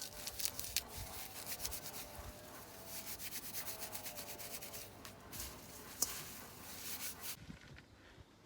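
Fireweed leaves and stems rustling and rubbing as they are handled: a dense run of quick scratchy strokes that stops about seven and a half seconds in.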